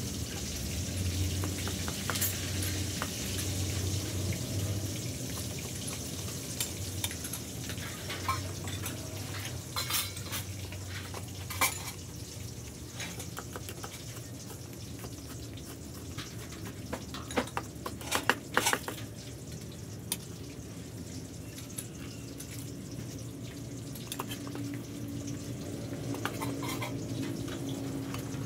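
Metal ladle clinking and scraping in a stainless steel pot, and a cleaver knocking on a wooden chopping board: scattered sharp clicks, with a quick run of chopping knocks past the middle.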